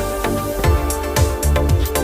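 Background music: an electronic track with steady sustained chords and a regular beat, with a deep bass pulse coming in about two-thirds of a second in.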